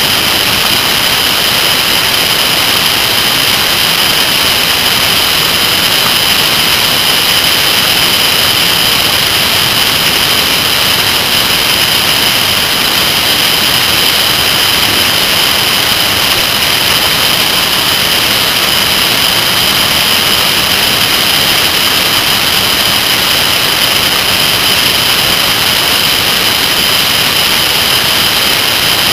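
Steady, loud rush of wind and road noise from a motorcycle riding at speed, with a constant high whine over the top that keeps the same pitch throughout.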